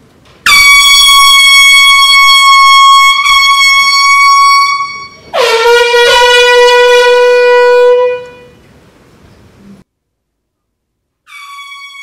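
Handheld canned air horns blasting: one high-pitched blast of about four and a half seconds, then straight after it a second, lower-pitched horn for about three seconds that dies away with an echo. Near the end, after a moment of silence, a fainter steady tone begins.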